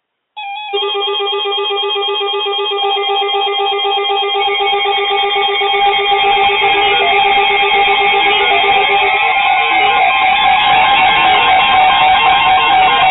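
Several weather alert radios sounding their alarms at once, set off by a new severe thunderstorm warning. Overlapping electronic beeps and steady tones start suddenly and run on together, with one tone sliding upward partway through.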